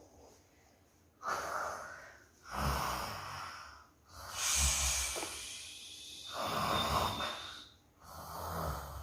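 A person snoring: rasping snorts on the in-breath alternating with puffing, blown-out breaths, about five breaths a second or two apart.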